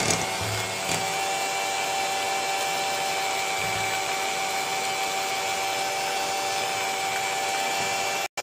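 Philips electric hand mixer running at a steady speed with an even whine, its beaters whisking eggs into creamed butter and sugar in a glass bowl. It stops abruptly just before the end.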